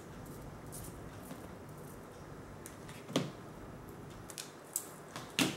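Scissors and clear packaging tape handled on a tabletop while a piece of tape is cut: faint clicks and rustles, with two sharp short clacks, one about three seconds in and one near the end.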